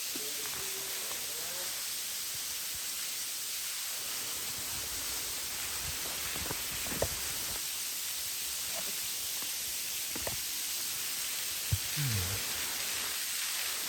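Steady rushing of a small mountain waterfall, with a few faint knocks near the middle and the end.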